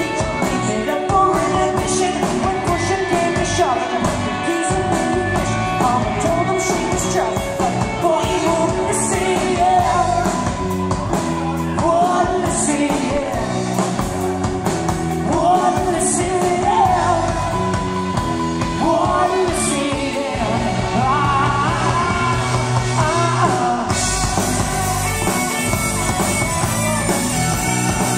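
Live rock band playing: a lead vocalist sings over electric guitars, bass and a drum kit. About 24 seconds in the singing gives way to the band alone, fuller and brighter in the cymbals.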